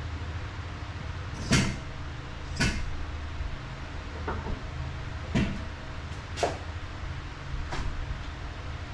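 Six sharp knocks and clunks of hand tools and car parts being handled during work on a motor mount, spaced roughly a second apart, over a steady low hum.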